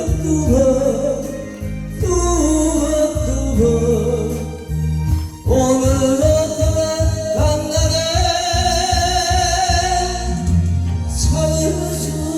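A singer singing a song over instrumental accompaniment, holding long notes with vibrato above a steady bass line.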